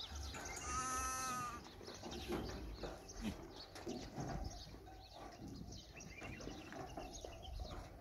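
One long, wavering bleat about a second in from a penned flock of sheep and goats, then the flock's shuffling and scattered small knocks.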